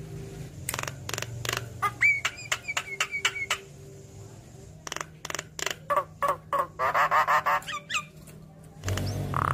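Caged Javan myna (jalak kebo) singing its varied song. It gives a string of sharp clicks, a steady whistled note, then fast chattering clicks and a warbling burst, and ends with a loud harsh note.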